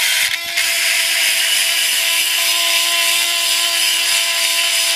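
Small electric chainsaw-sharpening grinder running with its grinding wheel on a chain cutter: a steady motor whine under a harsh grinding hiss, with a brief dip about half a second in. The grinder is worn out, and its bearings are rattling.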